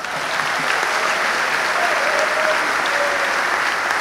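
Large audience applauding, swelling up in the first moments and then holding steady.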